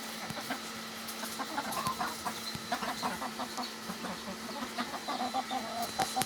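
Desi chickens on a village poultry farm clucking, many short clucks overlapping and growing busier after the first second or so, over a steady faint hum.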